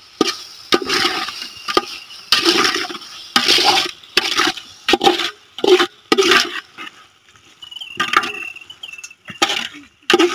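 Metal ladle stirring and scraping field snails through thick, wet masala in a metal cooking pot: about a dozen wet, scraping strokes, roughly one a second.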